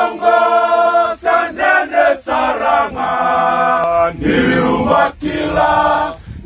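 A group of men singing together in harmony, like a male choir, with no instruments. They hold sustained chords that change every second or so, with brief pauses between phrases.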